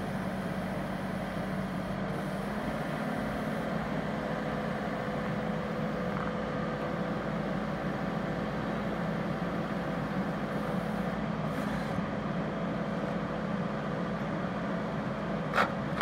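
Kubota compact track loader's diesel engine running steadily under load as the machine pushes a Bobcat grader blade along a gravel road, a constant even hum with no change in speed.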